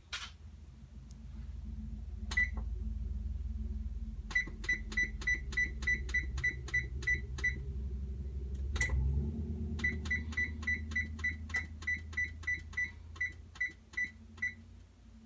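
Oven control panel beeping as its buttons are pressed to set a 15-minute cook time: two long runs of short high beeps, about three a second, with a click between them, over a low hum.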